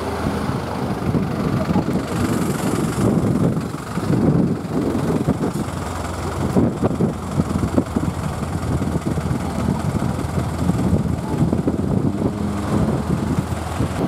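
Road traffic with a small box truck's engine idling close by, a steady low hum, while gusts of wind rumble on the microphone.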